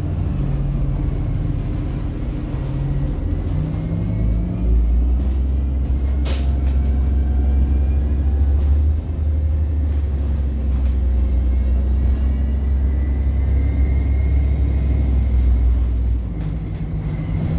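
Engine of a 2007 Orion VII 30-ft transit bus heard from inside the bus: a steady low hum that swells into a heavy load about four and a half seconds in as the bus pulls away, with faint rising transmission whine and a brief dip around nine seconds in. A single sharp knock comes about six seconds in, and the engine eases off shortly before the end.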